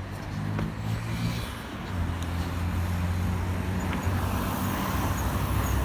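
Road traffic: a motor vehicle's engine running with a steady low hum, getting a little louder about two seconds in.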